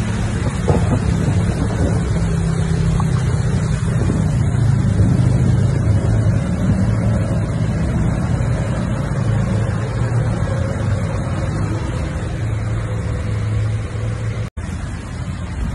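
Steady low rumble of a vehicle's engine and road noise, heard from inside the vehicle, with a constant hiss over it. The sound cuts out for an instant near the end.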